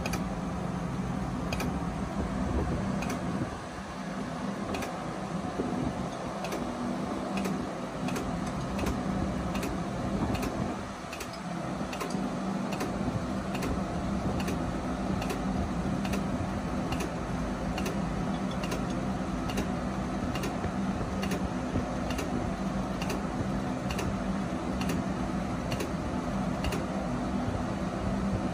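Steady hum of running machinery, with faint regular ticks a little under twice a second throughout. The loudness dips briefly twice, about 4 and 11 seconds in.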